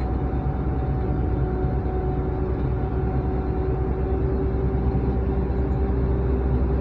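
Logging machine's diesel engine running steadily under way, a constant low drone with a faint steady whine over it.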